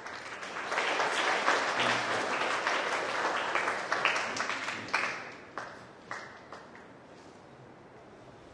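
Audience applauding. It swells about a second in, holds, then dies away to a few scattered claps by about six seconds in.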